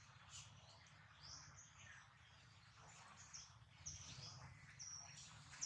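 Faint birds chirping: a string of short, high chirps, coming more often in the second half, over low background noise.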